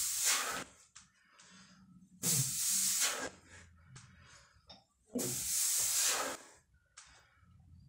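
A man breathing hard while doing barbell back squats: three loud, forceful breaths about every two and a half to three seconds, one per rep, with fainter breaths between them.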